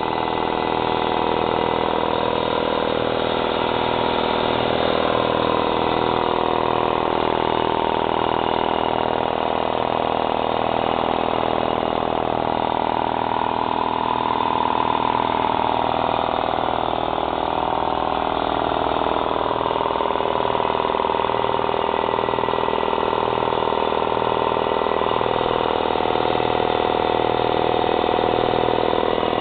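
Ingersoll Rand 60-gallon vertical air compressor running steadily, its motor-driven pump charging the tank with air.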